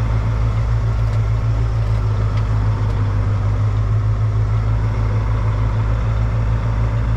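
Heavy diesel engine running at a steady speed, a constant low hum with no change in pitch.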